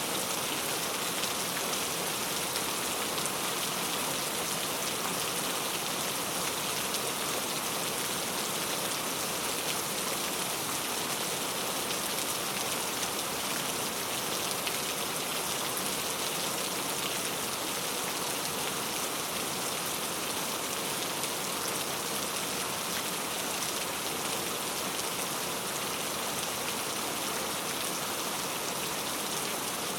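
Steady rain falling, an even hiss of drops on a surface with no pauses or changes.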